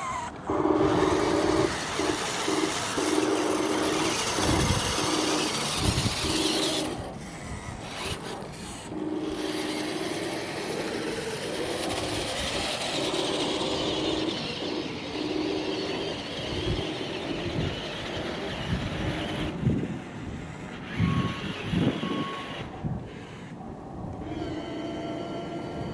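Radio-controlled model Volvo A40G articulated dump truck driving across gravel and dirt: the whine of its drive motors and gears with stones crunching under the tyres, and a low tone pulsing on and off about twice a second. Two short high beeps come near the end.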